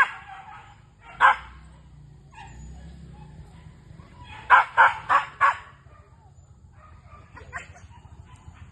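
Dog barking: a single bark about a second in, a quick run of four barks around the middle, and a few fainter barks near the end.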